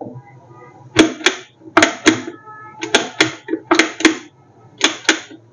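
Plastic switch on a mains blender clicked repeatedly, in pairs about once a second, with no motor running: the blender is dead and does not start when switched on.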